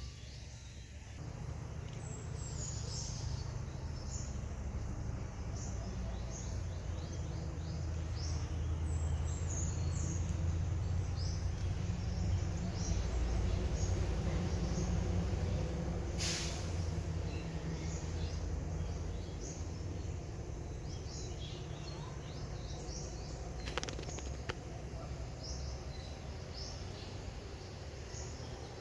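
Outdoor forest ambience: short high-pitched chirps repeat every second or so over a low, steady rumble that swells in the middle. A single sharp click comes about two-thirds of the way through.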